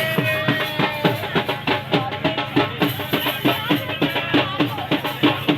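Drum-led music with a fast, steady beat of hand-struck drum strokes.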